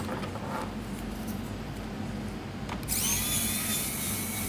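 Small electric screwdriver starting up about three seconds in and running with a steady high whine, backing a screw out of a laptop's case.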